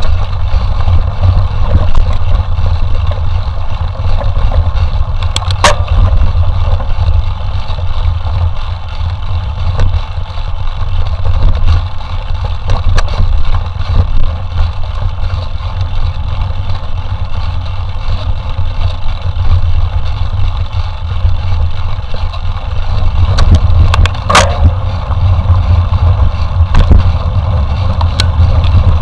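Mountain bike ridden over a rough forest trail: a steady, loud wind rumble on the microphone, with the bike rattling and a couple of sharp knocks over bumps, the loudest about 6 and 24 seconds in.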